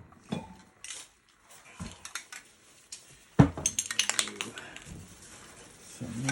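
Metal spray paint cans being handled: scattered clinks and knocks, the loudest knock about halfway through followed by a quick run of small clicks.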